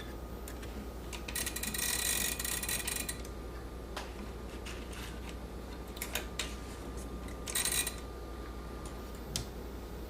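Small metal clicks and two runs of rapid clicking, the longer lasting nearly two seconds about a second in, from hands working the ribbon spools and guides of a 1949 Smith Corona portable manual typewriter.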